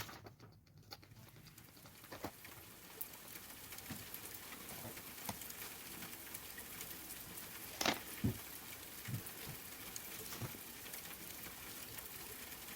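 Soft rain falling steadily, fading in over the first few seconds. A couple of small taps come about eight seconds in.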